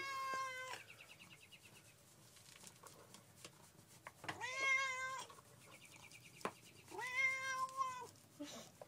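Tabby cat giving three long meows, each about a second long, a few seconds apart.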